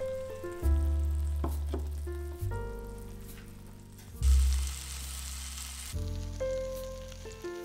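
Background music, with melodic notes over a bass that returns about every two seconds. Under it, yellowtail pieces sizzle as they fry in a pan, loudest in the middle stretch.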